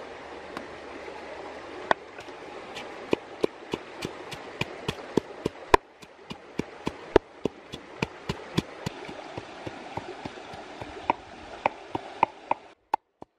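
Pestle pounding chillies and garlic in a wooden mortar: sharp knocks about three a second, a pause, then a few more near the end. Under it is the steady rush of a stream.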